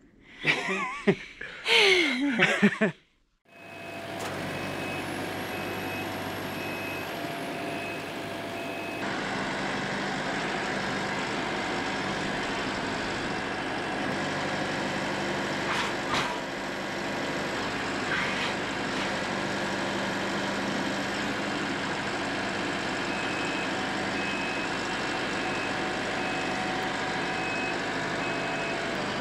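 A compact tractor's diesel engine running steadily while its front-loader grapple breaks out a concrete block wall. A high beep repeats for a few seconds twice, and a couple of sharp knocks come around the middle.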